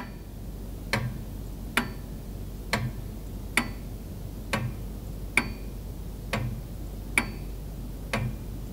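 Ticking clock sound effect: an even tick-tock a little faster than once a second, every other tick with a brighter ring, serving as a pause timer.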